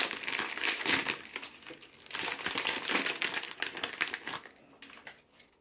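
Plastic wrapping crinkling and rustling in quick, irregular crackles as a small vinyl figure is unwrapped by hand; it dies away about four and a half seconds in.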